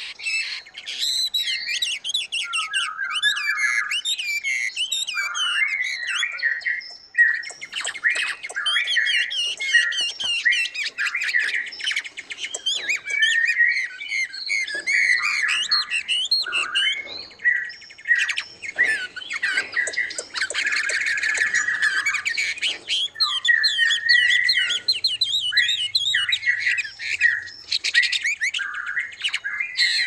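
Many small caged songbirds in an aviary chirping and calling over one another: a dense, continuous chorus of overlapping chirps and calls, with a brief lull about seven seconds in.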